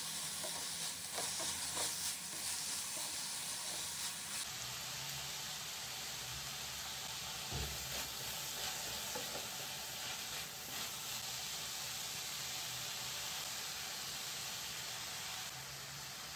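Shredded cabbage, carrot, capsicum and chicken stir-frying in a nonstick pan: a steady sizzle, with a wooden spatula tossing the vegetables and tapping against the pan, most of the taps in the first few seconds.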